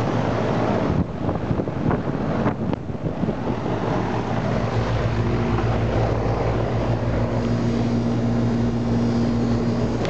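A 1993 Janitrol 4-ton central air-conditioner condensing unit running loudly: its Bristol reciprocating compressor and condenser fan make a steady hum, and a higher steady tone joins about halfway through. A few brief knocks come in the first few seconds.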